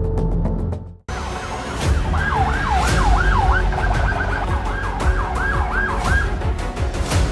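Music cuts off about a second in. A police siren follows in a fast yelp, sweeping quickly up and down over a steady low rumble.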